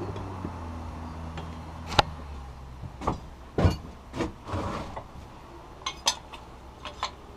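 Scattered metal clinks and knocks, about nine in all, as steel pieces and tools are handled on a work surface, over a low steady hum that fades out around the middle.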